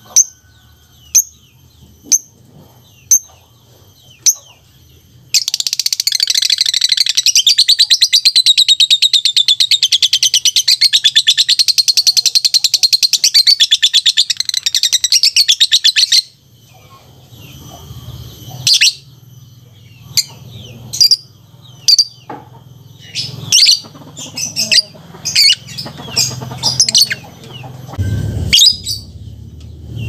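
A caged lovebird calling: a few sharp chirps about one a second, then a loud, very fast rattling trill lasting about eleven seconds that stops abruptly. This is the long chatter known in Indonesia as 'ngekek'. Scattered sharp chirps and calls follow.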